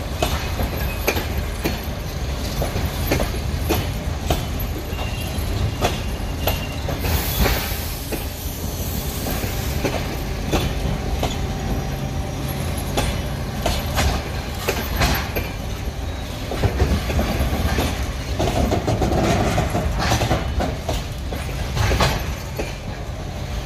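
Passenger coaches of an arriving train rolling past, wheels clicking over rail joints again and again over a steady rumble.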